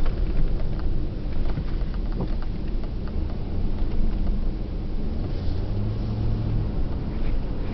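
Car driving along a highway, heard from inside the cabin: a steady low rumble of engine and road noise, with a low hum that grows stronger about two-thirds of the way through.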